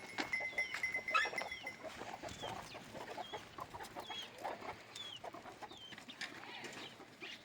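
Farm animals, with a run of short high falling chirps every second or so and scattered clicks; a steady high tone stops a couple of seconds in.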